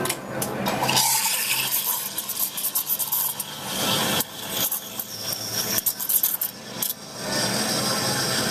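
Espresso machine steam wand steaming milk in a stainless steel pitcher, the aerating stage of milk texturing for latte art. An uneven, crackly hiss turns into a steadier, fuller hiss about seven seconds in.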